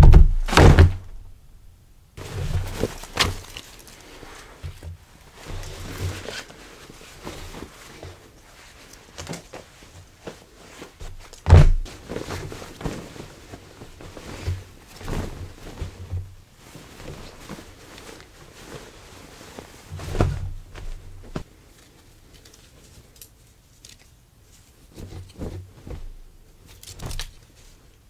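Shirts being handled at a tabletop: fabric rustling and handling noises, with a few dull thumps on the table, the loudest right at the start.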